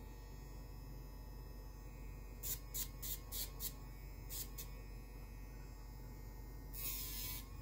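Dog nail grinder (pet Dremel) running with a faint steady whine, its drum touching a puppy's claws in six short grinding hisses, then one longer one near the end.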